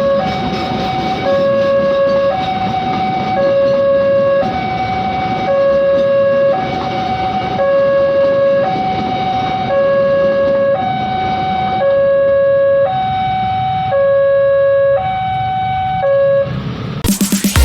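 Railway level-crossing warning siren sounding a loud two-tone hi-lo alarm, switching pitch about once a second, with a low rumble under it. The siren stops about sixteen seconds in.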